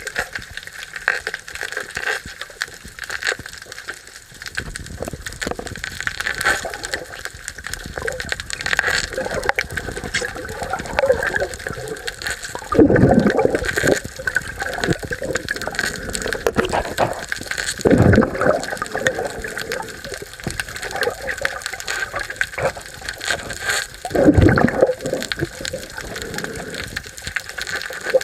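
Sea water swirling and gushing around a camera during a freedive, a steady watery rush with three louder surges.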